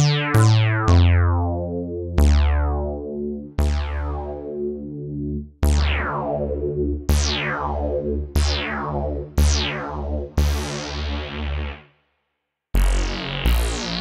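Wavesequencer Theia software synthesizer playing its SimplePhaseySynthPluck2 pluck preset: a slow run of plucked synth notes and chords, each with a bright attack that dulls as it fades. The notes break off briefly about twelve seconds in, then two more sound.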